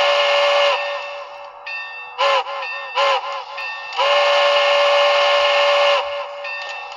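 HO scale model steam locomotive's DCC sound decoder playing a quilled steam whistle through the model's small speaker. A long blast ends shortly after the start, then a few short toots with the pitch bending up and down around two to three and a half seconds in, then another long blast from about four to six seconds.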